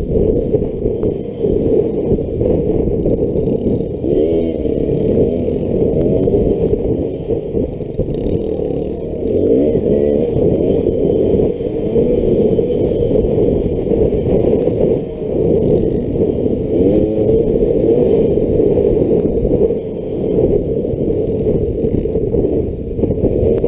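Two-stroke Beta XTrainer dirt bike engine running under load as it is ridden, its revs rising and falling several times, over a steady rushing noise.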